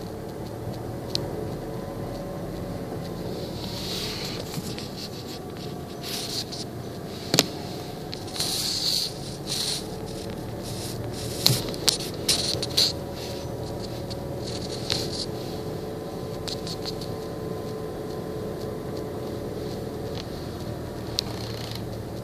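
Car driving slowly, heard from inside the cabin: a steady engine and road hum. Scattered sharp clicks and short scraping crackles come and go through the middle, the loudest a click about seven seconds in and a cluster around eleven to thirteen seconds.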